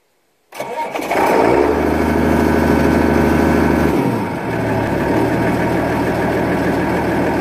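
International Harvester 3588 2+2 tractor's six-cylinder turbo diesel starting up about half a second in, then running steadily, heard at the exhaust stack.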